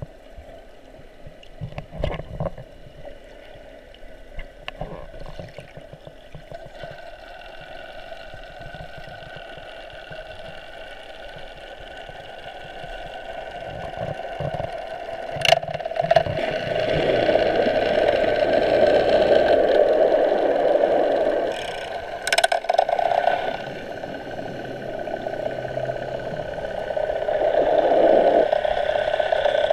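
A motorboat engine heard underwater, a steady droning hum with several steady tones that grows louder about halfway through, eases off, and swells again near the end. There are scattered clicks and knocks in the first few seconds.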